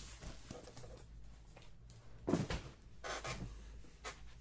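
Faint off-camera handling noises: a few short knocks, the loudest a little over two seconds in.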